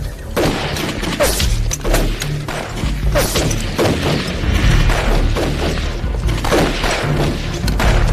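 Dramatic action film score with a heavy, steady low bass and frequent sharp booming percussive hits.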